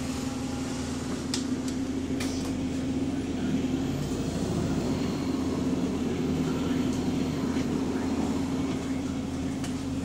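City bus's diesel engine running steadily as the bus moves off, heard from inside the passenger saloon, with a few light rattles from the body.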